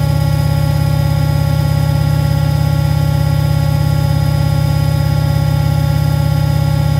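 Beko washing machine running steadily: a loud low hum with a fast, even pulse and a steady motor whine of several fixed tones above it, holding at one speed.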